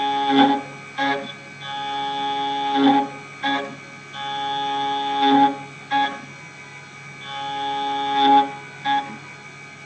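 Background music: a held, swelling chord that ends in a sharp accent, repeating about every two and a half seconds.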